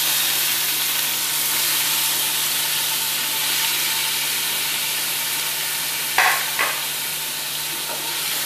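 Raw chicken cubes sizzling in hot oil with fried onion and garlic in a pressure cooker pot, being stirred with a wooden spoon: a steady, loud sizzle. Two sharp knocks sound about six seconds in.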